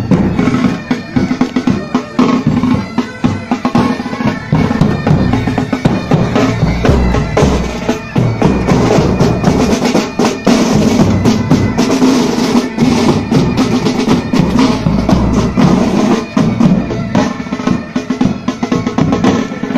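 Military pipe band playing on the march: snare drums and bass drums beating a dense, steady marching rhythm over a sustained bagpipe drone.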